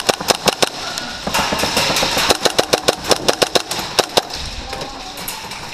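Airsoft gunfire: a rapid string of sharp shots, several a second, with a denser burst in the middle, stopping a little after four seconds in.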